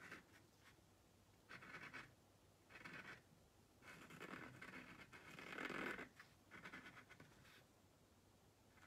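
Paint marker tip scratching faintly across a chalk-painted globe in four short strokes, the third one longer, as letters are traced.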